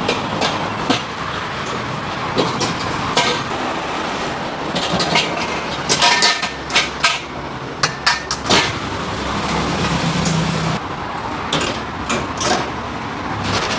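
Irregular sharp knocks and clatter of food-preparation work over a steady low background rumble.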